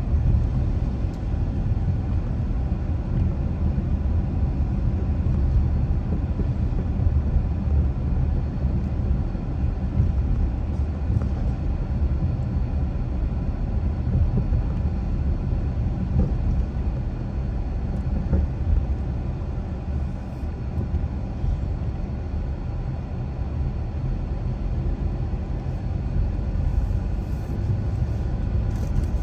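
Steady low rumble of a car driving at a constant pace, road and engine noise with no sudden changes.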